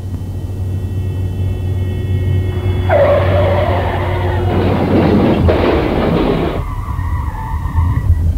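Radio-drama sound effect of a car crash: car and road noise building, a high squeal of tyres, then about three seconds of loud crashing noise that cuts off suddenly near the end.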